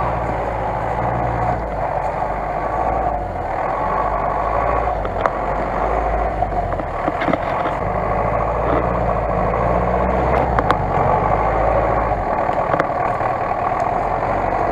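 GAZ-66 truck's engine running steadily as the truck crawls through mud, with small changes in engine pitch as it works along the track.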